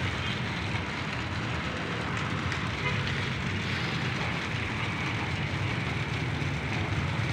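Steady road traffic noise from the street: an even rumble and hiss with no single pass or event standing out.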